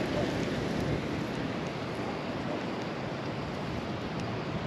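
Steady wind rushing and buffeting over the microphone, an even noise without breaks.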